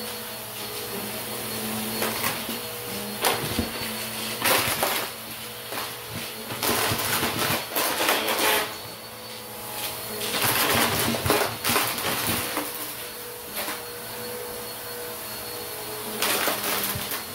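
Bissell upright vacuum running on carpet with a steady motor hum, sucking up plastic water bottle caps and fake coins, which rattle and crunch through the nozzle in irregular bursts.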